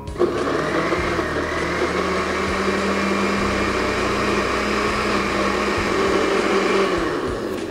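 Countertop blender running on a jug of tomatoes, scotch bonnet peppers and onions with a little water, making a pepper sauce. The motor starts abruptly, runs steadily for about seven seconds and winds down near the end, stopped short so the sauce stays coarse with pepper pieces.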